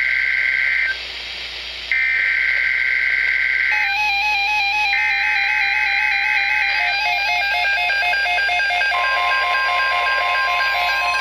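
NOAA Weather Radio EAS/SAME header data bursts, a harsh buzzing two-tone screech sent three times with short gaps, marking the start of a Severe Thunderstorm Watch alert. From about four seconds in, weather alert radios set off by the code beep in several overlapping stepped patterns. About nine seconds in, the broadcast's steady warning alarm tone begins under them.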